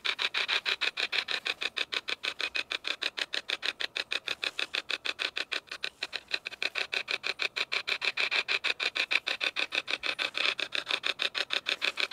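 Hack Shack spirit box (a modified radio) sweeping through stations: a fast, even chop of radio static with no words coming through.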